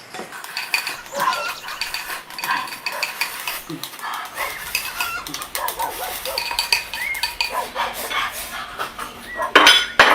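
Dishes and eating utensils clinking and scraping, with chickens clucking in the background and a louder clatter near the end.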